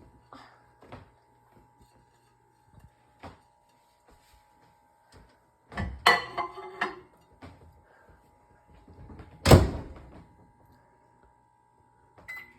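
Microwave oven being loaded and shut: light clicks and a clatter of knocks, then the door shutting with a loud thunk about nine and a half seconds in, and a short beep near the end.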